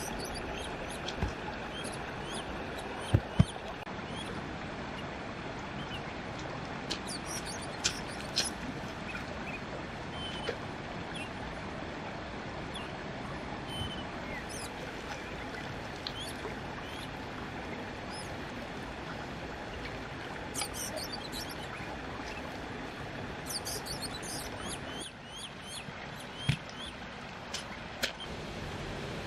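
A small shovel digging into clay soil, with loose earth crumbled and scooped by hand. There are a few sharp knocks, the loudest about three seconds in, over steady background noise and brief bird chirps.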